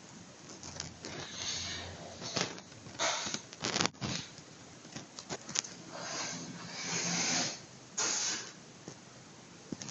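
Breathing close to a handheld phone's microphone: irregular hissy breaths every second or two, with a few sharp clicks of handling noise about a third and half of the way through.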